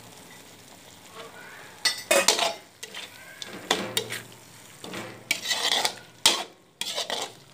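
Slotted metal spatula scraping and clinking against a metal wok while stirring a thick curry. The strokes are irregular and begin about two seconds in, after a quieter start.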